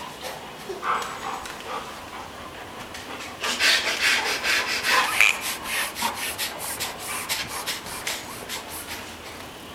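Baby boy snorting through his nose, a fast run of short breathy snorts that starts about three seconds in, loudest soon after, and tapers off near the end.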